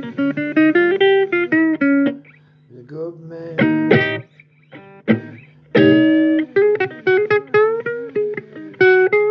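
Blues music led by guitar: picked single-note runs with bent notes over a steady low note, thinning out briefly twice in the middle.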